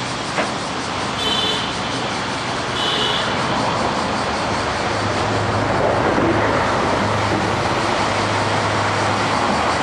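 A chorus of cicadas buzzing steadily in street trees, mixed with road traffic. Around the middle, a passing vehicle swells louder and stays up.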